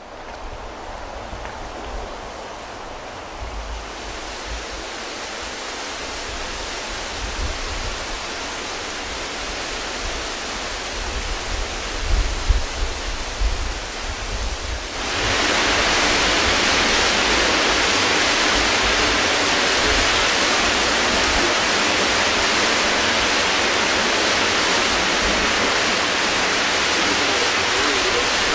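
Hurricane wind blowing through palm trees, gusting against the microphone in low rumbles. About halfway through it jumps to a louder, steady hiss of storm wind and surging sea.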